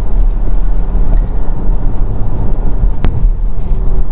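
Porsche Cayman driving on a wet road, heard from inside the cabin: a steady low rumble of engine and road noise. A single sharp click comes about three seconds in.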